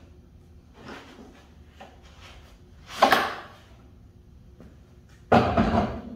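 Wooden boards and a plywood crosscut sled being handled on a table saw with the blade stopped: a loud wooden knock about three seconds in and a longer clattering knock-and-slide near the end, with lighter taps between.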